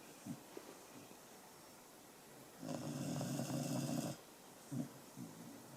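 A sleeping pet snoring: one loud snore about three seconds in, lasting about a second and a half, with short, faint breath sounds before and after it.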